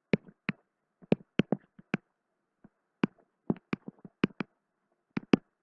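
A stylus tapping and clicking on a tablet screen while handwriting and choosing a pen colour: about eighteen sharp, short taps in irregular clusters.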